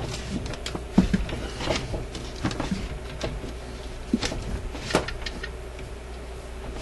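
Scattered clicks and knocks of test-lead clips and wires being handled and clipped on, the sharpest about a second in and about five seconds in.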